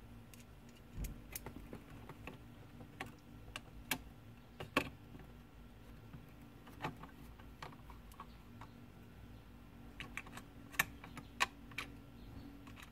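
Irregular small clicks and taps of hard plastic parts being handled and fitted as a new convertible-top switch is set into the car's centre console trim. The loudest click comes a little under five seconds in, and two more come close together near the end.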